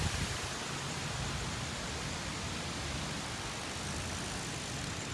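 Steady rushing noise of wind and passing street traffic.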